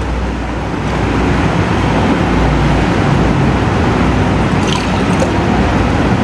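Water being poured from one drinking glass into another, over a steady background hiss and low hum.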